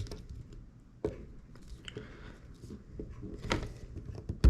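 Scattered small clicks and taps of a small screwdriver and tiny phone parts being handled during a repair, with a sharper tap about a second in, another near three and a half seconds, and a louder knock at the very end.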